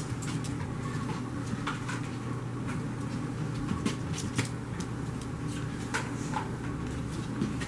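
French Bulldog puppies moving and playing on a mat and tile floor: scattered light clicks and taps from paws and toys, over a steady low hum.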